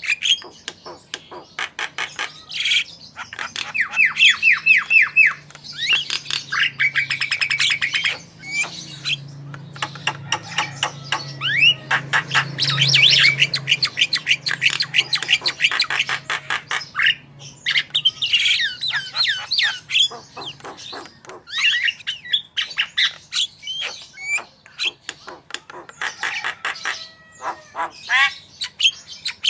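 Javan myna singing a loud, varied song of chirps, squawks and fast trills of repeated notes, mixed with calls of other birds it has learned to mimic.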